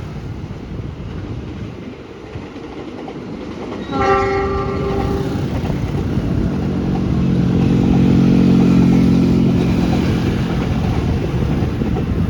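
A bus horn sounds once, a single held tone about a second and a half long, some four seconds in. Then a bus engine grows louder, peaks, and eases off again, as a large bus going past would.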